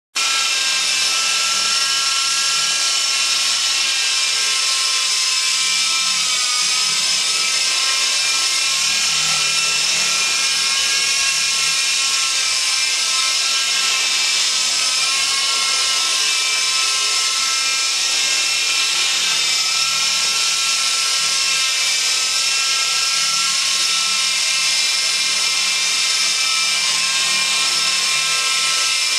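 Walkera 4#1 radio-controlled model helicopter's electric motor and rotors whining steadily, the pitch wavering slightly.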